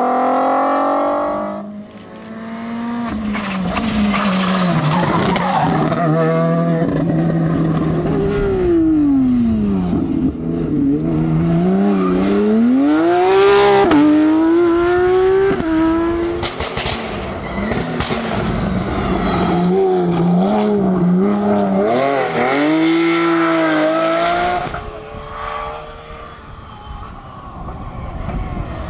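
Rally car engines at full throttle on a stage, revving up through the gears and dropping in pitch on lifts and braking, over and over. A few sharp cracks stand out over the engine noise.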